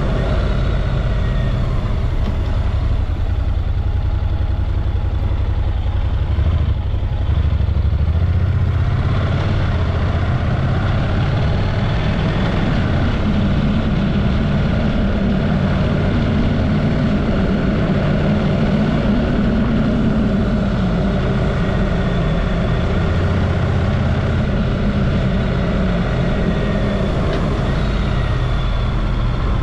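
Honda parallel-twin motorcycle engine running steadily while riding along, its pitch rising and easing off again about halfway through.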